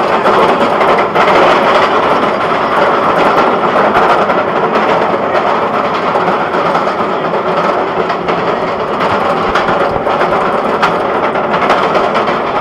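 B&M wing roller coaster train running on its steel track: a steady rumble and clatter with faint rapid clicks and no big changes in level.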